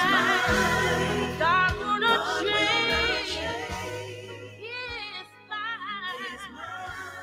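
Recorded gospel worship song: singing voices with wavering, held notes over a sustained bass accompaniment. It grows quieter after about four seconds.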